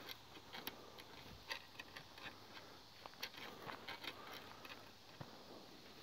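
Footsteps on a dry dirt forest trail: faint, irregular crunching and clicking of soil, leaf litter and twigs underfoot at a walking pace.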